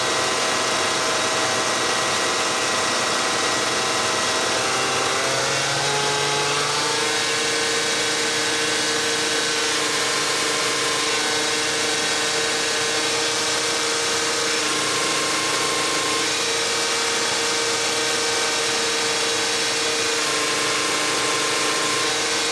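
Bacharach injection pump test stand running a VE rotary diesel injection pump that sprays through large test nozzles: a steady mechanical whine with several tones. About six seconds in the pitch drops as the stand slows, then it runs steady at the lower speed.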